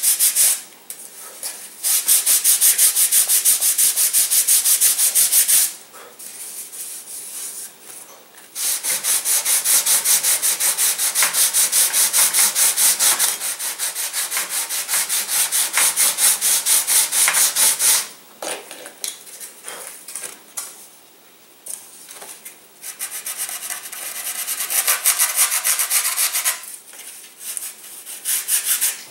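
Sanding block rubbed fast back and forth over a carved wooden glider wing, shaping the wingtips. It comes in long spells of quick even strokes with short quieter pauses between.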